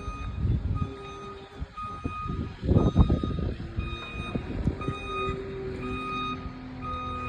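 Vehicle reversing alarm beeping about once a second over engine rumble, with heavier low clunks about three seconds in.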